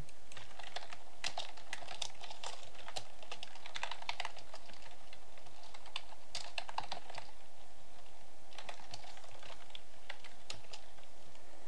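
Typing on a computer keyboard: quick bursts of keystrokes, with a brief pause about two-thirds of the way through.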